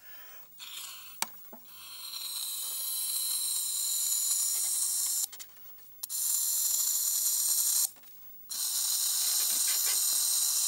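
A person blowing hard through a narrow plastic pen tube to inflate a balloon: three long blows of rushing air, each a few seconds long, with short pauses for breath between them.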